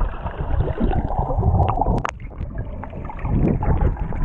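Water sloshing and gurgling, with a low rumble and a few knocks on the microphone.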